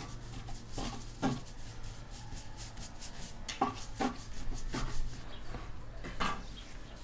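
A metal blade cutting down through a large ball of soft bread dough, with about six short scrapes and knocks as it presses and drags on a floured wooden tabletop.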